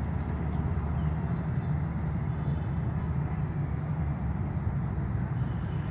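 Steady low engine rumble of an approaching GE U20 diesel-electric locomotive.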